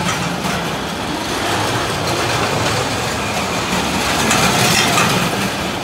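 Cyclone Coaster's roller coaster train running along its track with a steady rumble.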